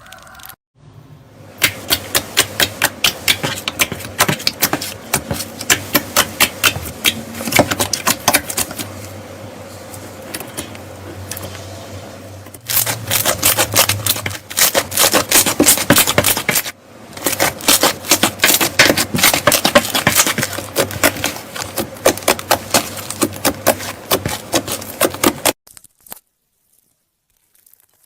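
Slime being squeezed and worked by hand, giving dense runs of rapid crackling clicks and pops, with a brief break about midway and stopping shortly before the end.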